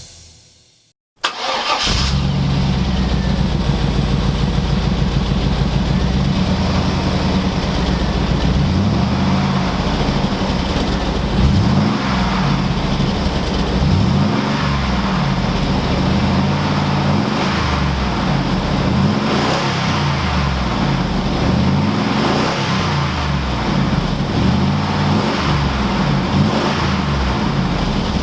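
A 1999 GMC Yukon's 5.7 L V8 starts about a second in and idles through stacked Cherry Bomb mufflers. It is then revved in a series of blips, the pitch rising and falling about eight times.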